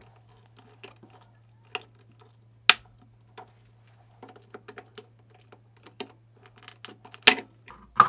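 Small plastic clicks and taps as a fridge light switch is worked free of its clips and pulled out of the plastic fridge cabinet liner with a flathead screwdriver, with two sharper clicks, about a third of the way in and near the end.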